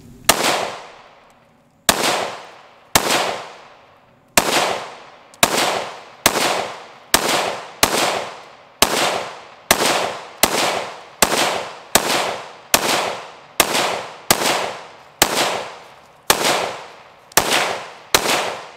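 A 5.7×28mm semi-automatic pistol fired in slow, aimed single shots. There are about twenty shots, roughly one a second, and each one rings out briefly.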